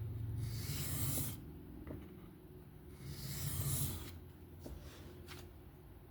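Knife blade, an M390 steel Benchmade Bugout, scraped across a coarse 325-grit sharpening plate in two freehand strokes of about a second each, cutting a new edge bevel. Two faint clicks follow near the end.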